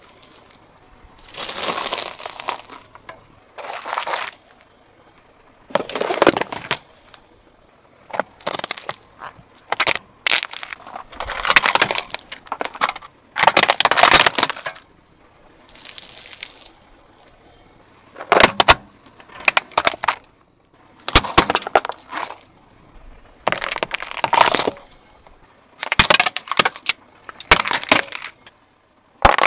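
A car tyre rolling over and crushing one object after another, including gel beads, a plastic toy train and a jelly-filled stick. About a dozen short bursts of cracking and crunching with sharp snaps, separated by brief quiet gaps.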